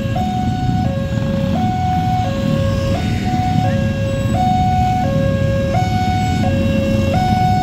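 Railway level-crossing warning alarm sounding its two-tone electronic chime, alternating high and low tones about every 0.7 s, which warns that a train is approaching. Under it is the steady low rumble of road traffic, with cars and motorbikes queued at the crossing.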